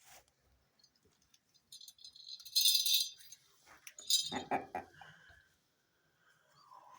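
A brief metallic jingling rattle, then a short wavering bleat from a young goat kid.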